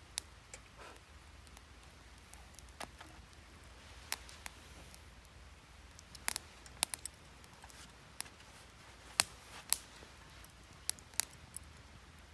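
Wood fire crackling, with sharp irregular pops scattered through, a dozen or so in all, the loudest a little past the middle.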